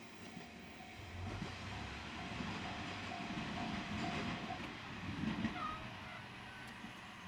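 A diesel train on the Dosan Line running past on the rails, with a low rumble of wheels on track. A thin steady whine runs through the first half and stops about four and a half seconds in.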